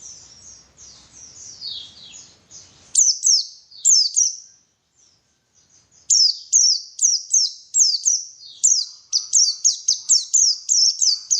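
White-eye (pleci) singing: rapid, high chirps and downward-slurred notes in quick succession. About three seconds in the song changes abruptly to louder, cleaner notes, pauses briefly, then resumes as a fast run of repeated slurred notes.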